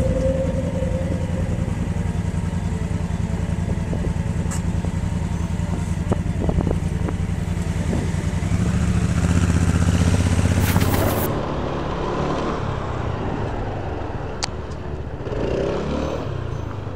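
Motorcycle engine idling steadily, heard from the rider's seat. About nine seconds in it runs louder for a couple of seconds and ends in a brief hiss, then drops back to a quieter steady running.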